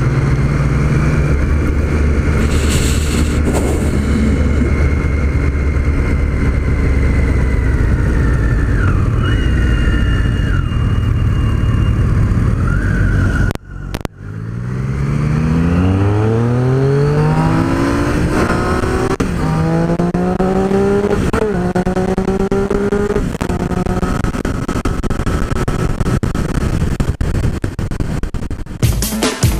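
Triumph Street Triple's three-cylinder engine running at a steady cruise, heard with wind rush. After a brief cut it accelerates through the gears, its pitch climbing and dropping back at each of about three upshifts before it settles. Music comes in right at the end.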